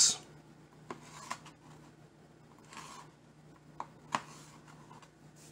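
Spyderco Native 5 folding knife slicing through grapes, its blade tapping on a plastic cutting board: a few faint, separate knocks.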